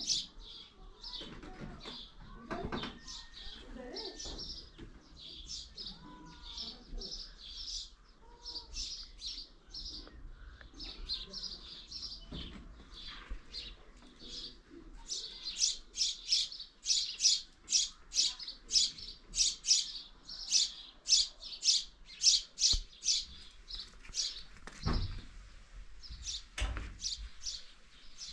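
A small bird chirping over and over in short, sharp chirps, which turn louder and more regular about halfway through at roughly three a second. A couple of dull thumps come near the end.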